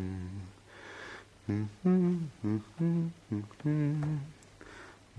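A person humming a tune with closed lips in a run of short, steadily pitched notes, with audible breaths between phrases.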